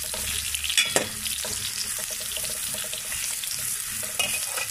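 Sliced onions and ginger-garlic paste sizzling steadily in hot oil in a metal pot while they are stirred with a slotted metal spatula, the onions being fried until they turn reddish-brown. A few sharp scrapes and clicks of the spatula on the pot come about a second in and again near the end.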